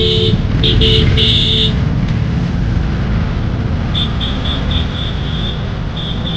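Road traffic rumbling, with a vehicle horn honked in several short blasts during the first two seconds. From about four seconds in comes a quick run of short, high-pitched beeps.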